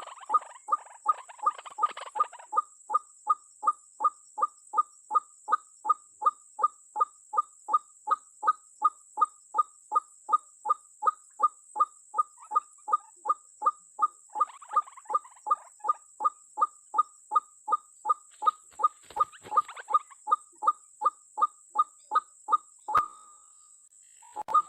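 White-breasted waterhen (dahuk) calling a short, identical note over and over, about two and a half times a second in a steady, unbroken rhythm, stopping about a second before the end, then one last brief call.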